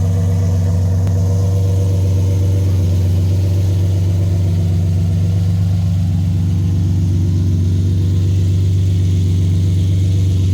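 Car engine idling steadily at an even, unchanging pitch, with a strong low hum.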